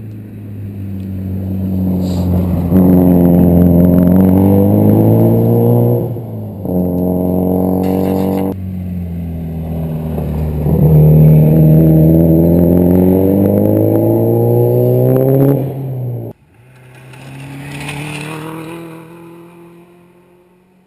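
Rally cars accelerating hard along a gravel stage, engine pitch climbing and breaking off at gear changes, loud and close for most of the first sixteen seconds. After an abrupt cut, another car is heard swelling as it approaches and fading as it moves away.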